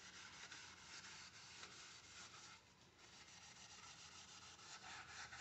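Kitchen sponge rubbing polishing paste over an aluminium pot lid: faint, quick back-and-forth scrubbing strokes, with a brief pause about two and a half seconds in.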